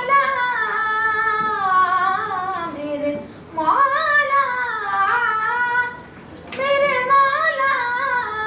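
A child singing solo, with no instrument, in three long drawn-out phrases that slide and waver in pitch, with short breaths between them about three and six seconds in.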